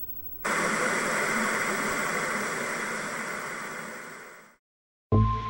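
A steady hiss of static-like noise cuts in about half a second in and slowly fades out, followed by a short silence. Music with a low beat starts just before the end.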